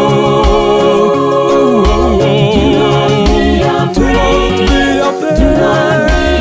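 Gospel song: voices singing over a backing track with a low bass line.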